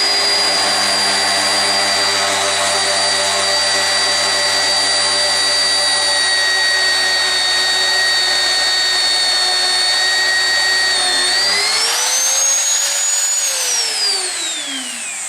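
Electric drill running at a steady high whine while drilling holes in the bumper. Near the end it speeds up briefly, then winds down as the motor is switched off.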